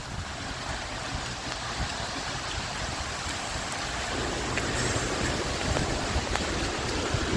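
Strong thunderstorm wind driving rain, a steady rushing with wind buffeting the microphone; it grows louder about halfway through.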